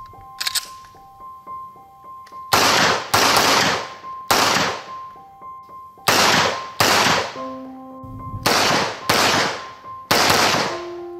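Walther PPQ 9mm pistol firing about eight shots, some in quick pairs, each with a short echoing tail. Background music plays underneath.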